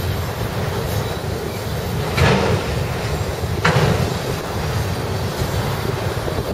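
Freight train of autorack cars rolling past with a steady low rumble of wheels on rail, wind buffeting the microphone. Two louder metallic clanks from the wheels come about a second and a half apart, a little past the middle.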